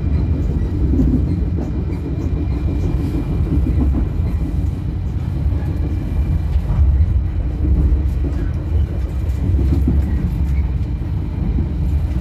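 Jaka Tingkir passenger train running along the line, heard from inside the carriage: a steady low rumble of wheels on rails and the moving coach.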